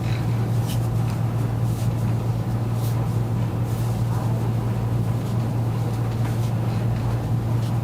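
Steady low machine hum at one unchanging pitch.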